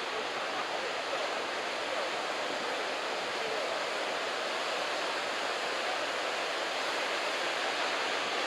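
Ocean surf from a head-high typhoon swell, breaking waves making a steady, unbroken rush of noise.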